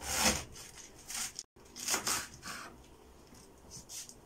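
Kitchen knife cutting into a whole head of white cabbage, a few short cutting strokes, the loudest right at the start; the sound drops out briefly about a second and a half in.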